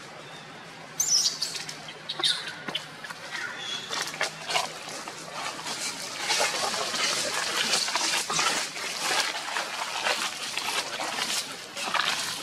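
Dry leaf litter crackling and rustling under long-tailed macaques moving across it, with a couple of short high squeaks about one and two seconds in. The crackling gets denser and louder from about six seconds in.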